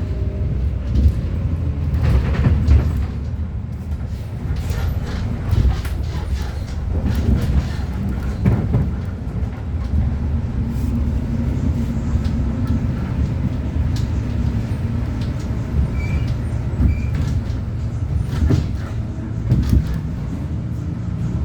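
Inside a city bus under way: a steady low rumble of engine and road, with light rattles and clicks from the cabin. Two short faint beeps come about two-thirds of the way through.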